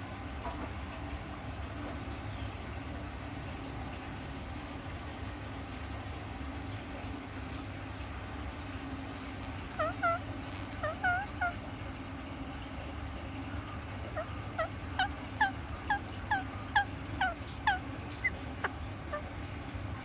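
Rose-ringed parakeet giving short, hooked-sounding calls: a few about halfway through, then a quicker run of about a dozen, roughly two or three a second. A steady low hum runs underneath.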